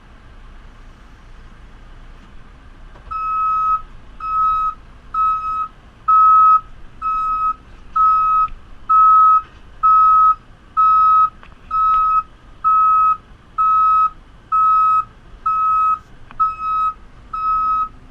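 JCB 3CX backhoe loader's reversing alarm beeping, about one beep a second, over the low hum of its diesel engine. The beeps start about three seconds in; the machine is backing up.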